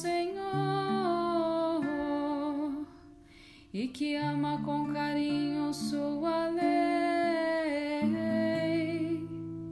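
A voice singing a slow Catholic liturgical psalm melody in long held notes over instrumental accompaniment; the music dips briefly about three seconds in, then the singing resumes.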